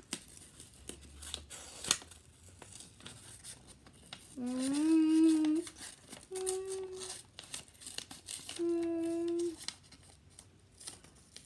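Scissors snipping through a sheet of paper, with short clicks and paper rustling. In the middle a child hums three held notes, the loudest sound, the first about four seconds in, the last near nine seconds.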